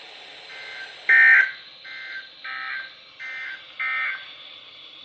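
EAS/SAME end-of-message data bursts on NOAA Weather Radio, closing a severe thunderstorm warning. There are six short buzzing bursts about two-thirds of a second apart, falling in two interleaved sets of three, so two radios are playing the three-burst sequence slightly out of step. The second burst is the loudest.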